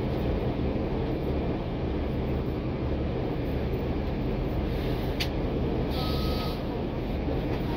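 NABI 416.15 transit bus heard from inside the passenger cabin while under way: steady engine and road rumble. A sharp click comes about five seconds in, and a second later a brief hiss with a short high tone.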